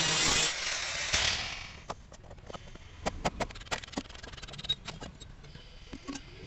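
Abrasive cut-off wheel grinding through the steel can of a filter, loud for about half a second, then dying away over the next second or so. After that come scattered light knocks and clicks as the cut filter is handled on the steel saw bench.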